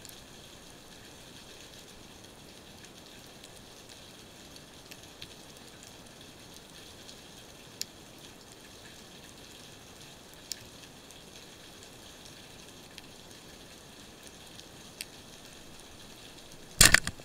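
Underwater hiss with scattered sharp clicks, then near the end a single loud, brief bang as a reel-mounted speargun is fired.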